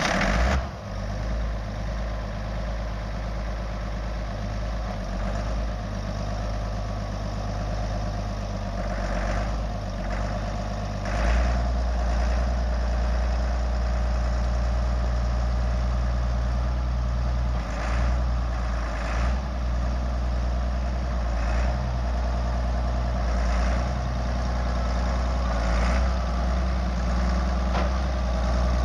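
A 1994 AGCO Allis 9650 tractor's Deutz six-cylinder air-cooled turbo diesel idling steadily, just after being started. Its low rumble steps up and grows louder about eleven seconds in.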